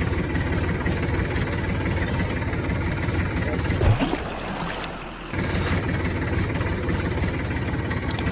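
Diesel engine idling with a steady, rhythmic sound. About four seconds in it gives way for about a second and a half to a quieter stretch with a short rising sweep, then resumes.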